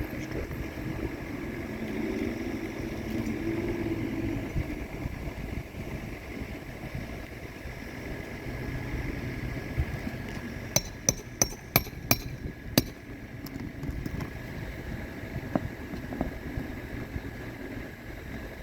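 A hammer striking about six times in quick succession, as when nailing shingles during a roof repair, over a steady low outdoor rumble.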